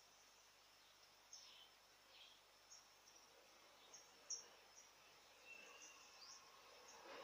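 Near silence: faint room hiss with scattered short, high chirps now and then, and one slightly louder tick about four seconds in.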